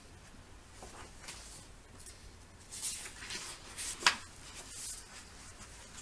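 Pages of a picture book being turned by hand: paper rustling and flapping several times, with one sharper slap of a page about four seconds in.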